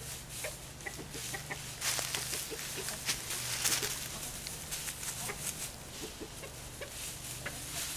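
Backyard chickens, hens with a rooster among them, clucking in short scattered notes as they forage, with rustling in the dry pine straw that is busiest about two to four seconds in.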